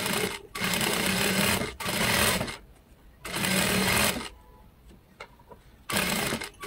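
Industrial flat-bed lockstitch sewing machine stitching through fabric in short runs, starting and stopping about five times, with a longer pause a little past the middle.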